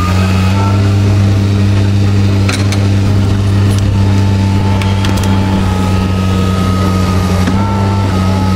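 A heavy lifting machine's engine running steadily as it hoists an aircraft engine out of a pit on a rope. A thin whine sits over the engine hum, and a few short clanks come about two and a half and five seconds in.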